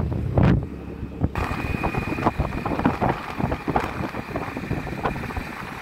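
Wind buffeting the microphone on a moving motorcycle, with the bike's engine running underneath. The sound changes abruptly about a second and a half in, and a faint steady high tone runs on after that.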